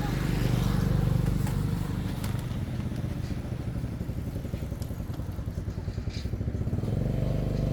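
Small motorcycle engine running steadily with a fast, even low pulse, with a few faint clicks and knocks over it.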